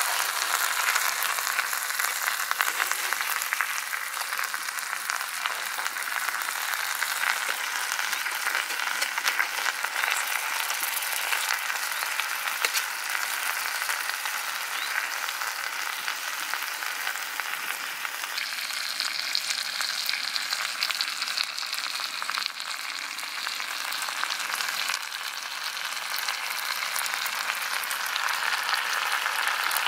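Masala-coated fish pieces frying in hot oil in a pan: a steady sizzle with fine crackling.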